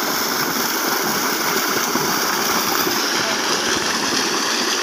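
Water gushing from a large irrigation pipe outlet into a shallow channel: a steady, loud rushing and splashing.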